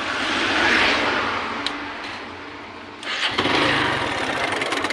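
Hero Glamour single-cylinder motorcycle engine revved twice, rising about a second in and again a little after three seconds. A fast, even ticking rattle comes in near the end: a slack timing chain, because the chain tensioner has failed.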